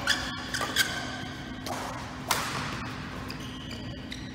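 Badminton rally: a few sharp cracks of rackets striking the shuttlecock, the loudest about a second and two seconds in, with short high squeaks of shoes on the court floor. A steady low hum runs underneath.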